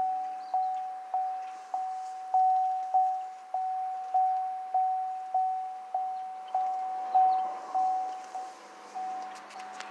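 2019 Chevy 3500 pickup's cabin warning chime dinging over and over, one pitch struck a little under twice a second, each ding fading before the next. Near the end the dings grow weaker and less even.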